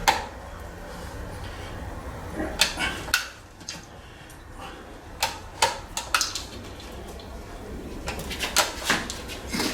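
Scattered clicks and knocks of metal tyre levers and a manual tyre changer against the wheel as a tight low-profile tyre's first bead is being worked off the rim, over a low steady hum.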